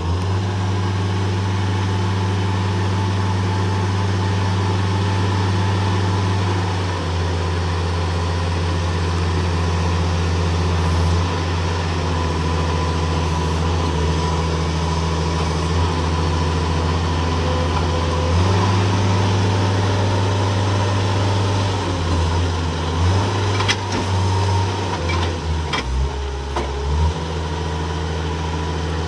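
Princeton PB50 truck-mounted forklift's engine running steadily while it drives the hydraulics to raise the mast. Its pitch steps a couple of times and shifts back and forth several times near the end.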